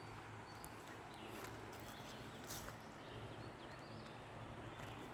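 Faint footsteps of a hiker walking on a firm, well-kept forest trail: a few soft, scattered steps over a low steady hum.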